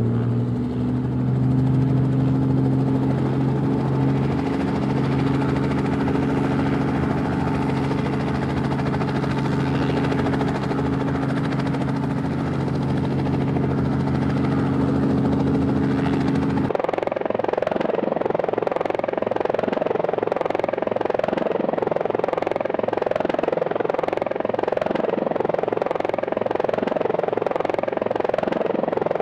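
Multirotor drone's propellers and motors humming steadily; about 17 seconds in the sound changes abruptly to a higher, wavering whine.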